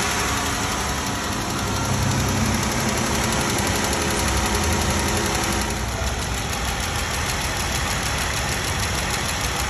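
Chrysler 3.6-liter Pentastar V6 of a 2016 Jeep Wrangler idling with a steady, bad tick. The tick comes from a rocker arm whose roller bearing has collapsed and scored the camshaft lobe.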